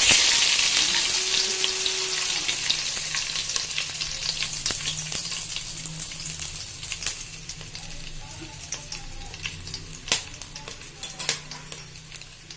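Whole spices (cloves, cinnamon, cardamom) sizzling in hot ghee and oil in a steel pot. The sizzle is loud at first and fades steadily as the spices settle, with scattered sharp crackles and pops.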